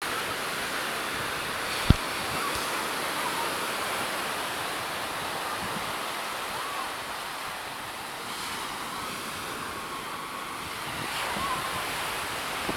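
Surf breaking and washing up a sandy beach, a steady rush of waves. A single sharp click comes about two seconds in.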